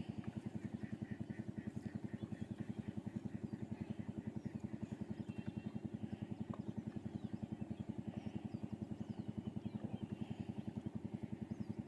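A small engine running steadily at low speed, an even rapid thudding of about ten beats a second. Faint bird chirps sound above it.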